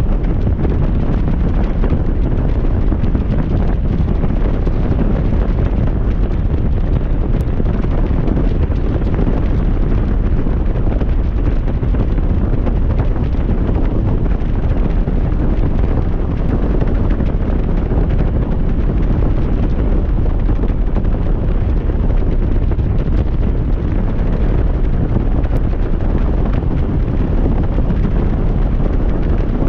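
Steady, loud wind buffeting on the microphone of a motorcycle riding at highway speed, a low rushing roar with no let-up.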